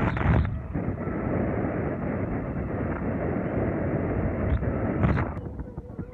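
Wind buffeting the microphone over the steady road and engine noise of a moving vehicle, with louder gusts at the start and about five seconds in. The sound drops noticeably quieter shortly before the end.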